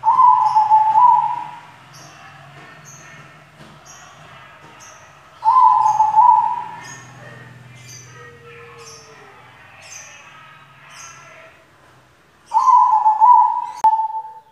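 White zebra dove (perkutut) cooing: three loud stepped coo phrases about six seconds apart, each lasting a second or two. Short high chirps repeat about twice a second behind them.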